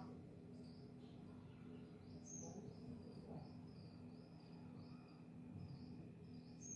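Faint, high chirps repeated about twice a second from a small animal, over a low steady hum.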